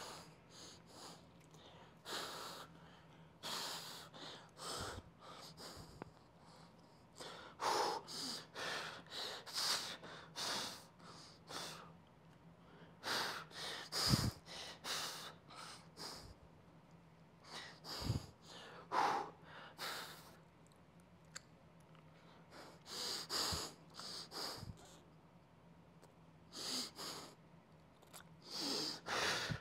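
A man breathing hard and forcefully through a set of barbell preacher curls: short, hissy exhales and inhales in clusters, every few seconds. A couple of dull knocks come about halfway through and a few seconds later, over a faint steady hum.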